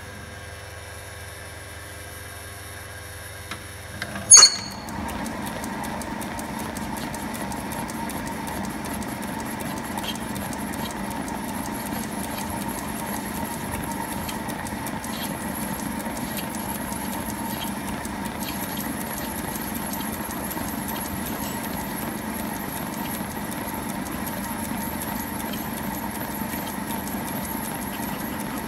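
Machine tool running while machining a brass part: a steady hum, then a sharp clank about four seconds in, after which the running noise is louder and stays even, with a thin high whine.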